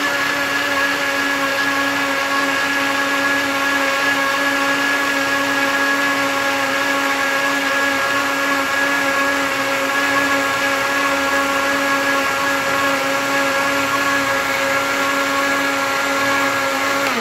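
Silvercrest heavy-duty blender motor running at a steady speed, a constant whine over the churn of liquid cake batter being whipped to work air bubbles into it.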